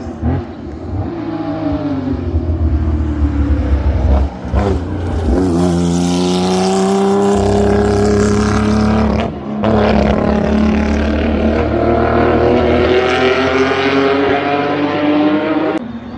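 Racing car engine accelerating hard, its pitch rising through the revs, with a short break about nine seconds in like an upshift before it climbs again.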